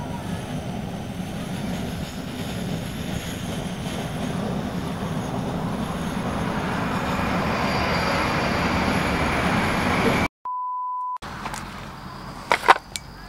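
Kovea Camp1 gas canister burner running at full flame under a pot, a steady rushing roar that grows gradually louder. About ten seconds in it gives way to a steady electronic beep lasting just under a second, followed by a few sharp clicks.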